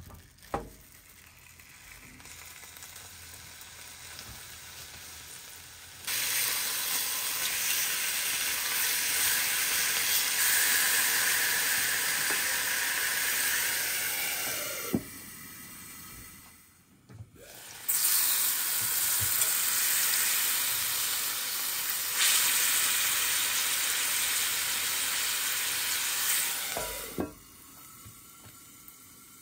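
Chicken breast frying in a cast-iron skillet, a steady sizzle that grows loud about six seconds in, dips briefly about halfway, then dies down near the end. There is a single sharp knock partway through.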